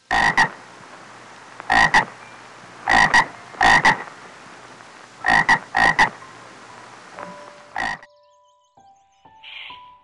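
Frogs croaking: short croaks, mostly two in quick succession, repeated every second or so over a steady hiss, stopping about eight seconds in.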